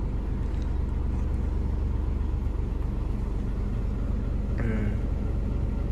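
Truck's diesel engine running steadily, a low even drone heard from inside the cab.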